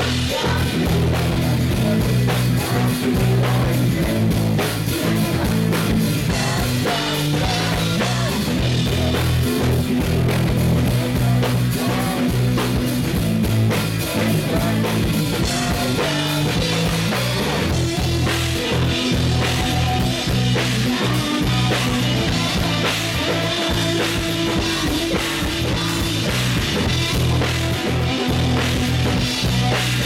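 Live pop-rock song played loud through a stage PA, with drum kit, guitar and bass under a woman's lead vocal sung into a handheld microphone.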